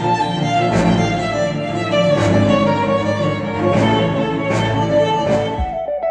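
Orchestral string music led by violins, played back through KEF R3 bookshelf speakers. Near the end it changes to separate plucked guitar notes as the next track begins.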